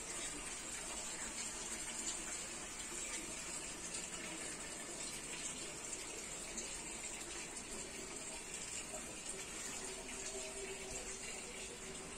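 Water running steadily, an even hiss that does not change.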